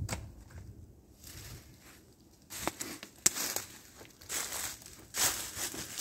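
Footsteps crunching through dry fallen leaves, starting about halfway through and getting louder near the end, with one sharp snap about three seconds in.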